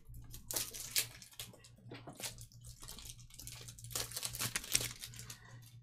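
Plastic packaging crinkling and tearing in irregular bursts of rustles and small clicks, typical of opening sealed trading-card boxes or packs. A faint low steady hum sits underneath.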